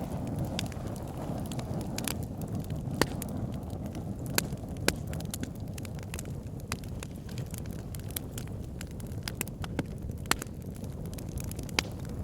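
Wood fire burning in a fireplace: a steady low rumble of the flames with irregular sharp crackles and pops from the logs, a few of them louder than the rest.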